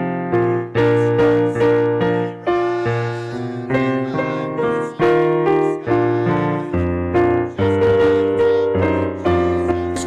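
Keyboard playing a slow hymn tune in full chords, each chord struck and left to fade.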